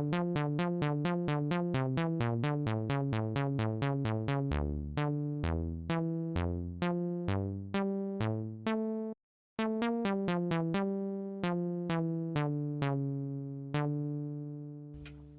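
Synthesizer playing a melody of short, plucked-sounding notes, about seven a second at first, then slower with deeper bass notes; it stops for a moment about nine seconds in, then goes on and ends on a long note that fades away.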